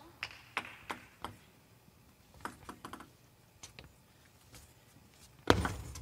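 Light, scattered taps of a table tennis ball between points, about three a second at first and then a few at a time. About five and a half seconds in comes a sudden loud knock, and louder hall noise follows.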